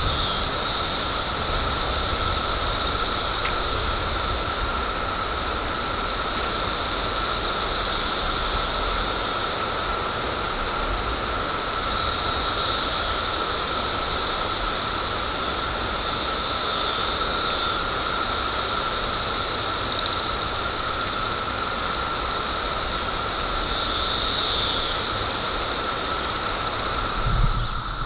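Chorus of Brood X periodical cicadas in the trees: a loud, steady high-pitched drone with a lower steady tone beneath it, the high drone swelling and fading several times.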